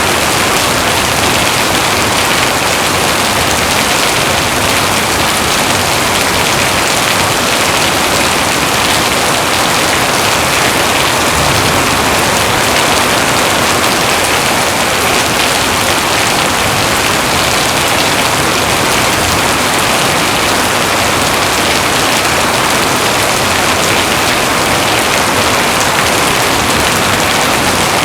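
Steady heavy rain, a dense even hiss with no let-up and no thunder.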